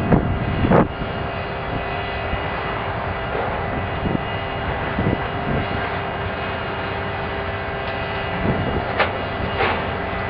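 Demolition excavators' diesel engines and hydraulics running steadily, with concrete debris crashing down in the first second and two sharp knocks near the end.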